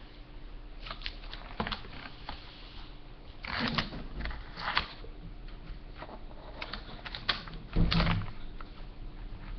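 Scissors snipping and the brown MRE pouch crinkling as a small child cuts at it, in scattered short snips and rustles, the loudest about four and eight seconds in.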